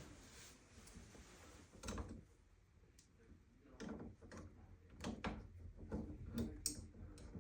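Scattered light knocks and clicks, seven or eight over several seconds, of plumbing parts and tools being handled while a shower valve is fitted.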